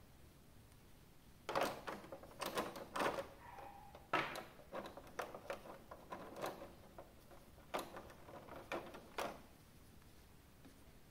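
Irregular clicks and knocks of hands handling an action figure's packaging and parts, starting about a second and a half in and stopping a couple of seconds before the end.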